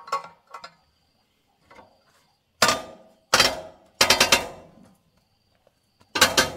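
Loud, sharp impacts, like hammer blows on metal. Lighter clicks come at the start, then a single blow about two and a half seconds in, a quick cluster of blows around three to four and a half seconds in, and another blow near the end.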